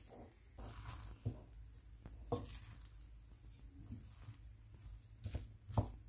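Wooden spoon stirring and turning microwave-steamed sticky rice in a glass bowl: faint soft squishing with a few light taps of the spoon against the bowl, the loudest near the end.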